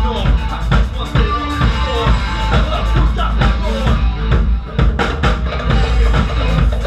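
Live band playing, with a drum kit's kick drum and cymbals keeping a steady beat under a melody line whose notes bend and slide.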